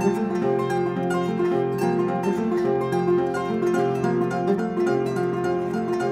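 West African kora, a 21-string harp, played solo: a steady stream of quick plucked notes, with low strings and higher strings sounding together.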